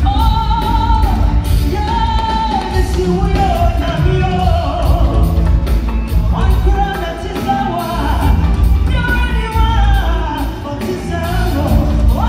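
Live gospel music: a vocal group singing a melody over a band with heavy bass, keyboard and a steady drum beat, heard through a large hall's sound system.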